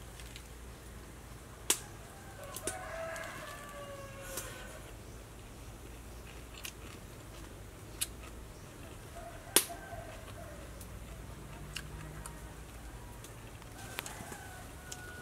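A rooster crowing once for about two seconds, a few seconds in, with fainter fowl calls later. Several sharp clicks stand out over a low steady background, the loudest near the middle.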